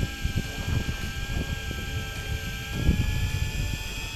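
Steady drone of a sea-fishing boat's engine, with high whining tones, and gusts of wind buffeting the microphone.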